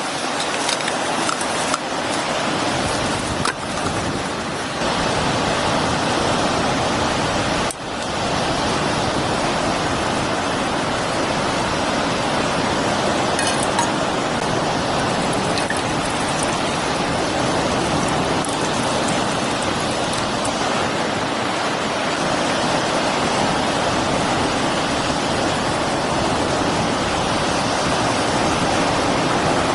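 Steady noise of strong wind and ocean surf on a beach, with a few light clicks in the first few seconds.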